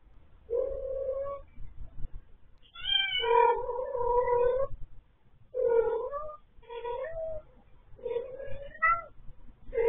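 A stray cat meowing over and over, about seven thin, kitten-like meows, some short and some drawn out for a second or two.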